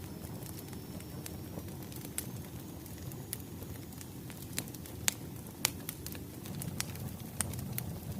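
Firewood burning, a steady low rumble of flames with scattered sharp crackles and pops, two louder snaps a little past halfway.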